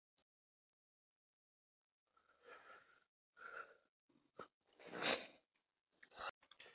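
A person's faint breathing close to the microphone: a handful of short, noisy breaths or sniffs, with the loudest one about five seconds in.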